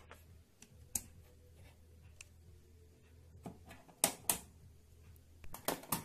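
A handful of sharp clicks and light knocks from hands handling a small aluminium-cased Lvpin LP-838 amplifier, the loudest pair about four seconds in, over a faint low hum that fades about four seconds in.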